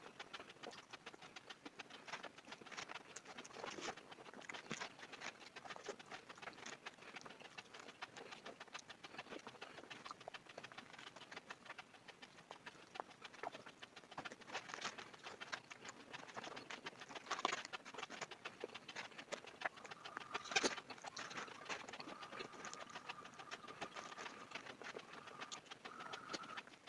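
Close-miked eating sounds: chewing with many small wet mouth clicks and smacks, going on without pause. From about two-thirds of the way in, a faint steady high tone runs for several seconds alongside it.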